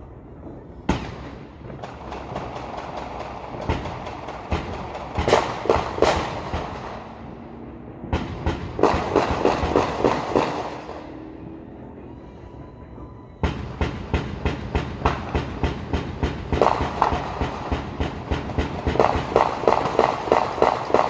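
Long runs of rapid, sharp explosive bangs, about four a second, in several bursts. The longest and loudest starts suddenly about two-thirds of the way in and keeps going. This is the kind of prolonged popping heard around New Year's Eve.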